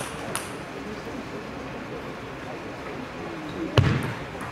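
Table tennis ball clicking twice off the table or bat at the start, then a low murmur in the hall, then a sharp hard strike of the ball near the end as the rally gets under way.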